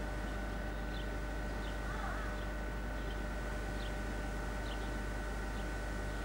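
Steady low electrical hum with a few thin, constant whine tones over it, and faint short high chirps scattered through at irregular intervals of about half a second to a second.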